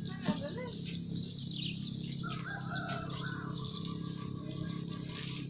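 A rooster crowing once: one long call that starts about two seconds in and drops lower partway through.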